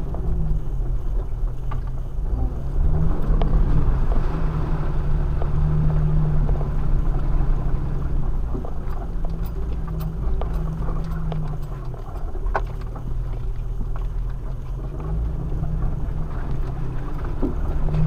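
Off-road vehicle engine heard from inside the cab, working at low speed over a rough dirt trail. The engine note rises and falls with the throttle, and scattered clicks and knocks come from the bumpy ground.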